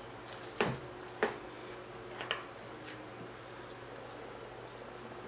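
Knife and fork sawing into a bacon-wrapped stuffed pork chop in a clear plastic tray, the utensils giving three sharp clicks in the first couple of seconds and a few fainter ticks after.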